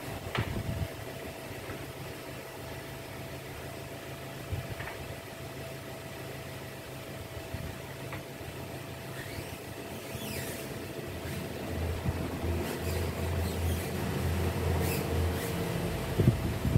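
A steady motor hum with a faint held tone, growing louder and pulsing from about twelve seconds in, with scattered knocks and splashes from hand-washing a pickup truck.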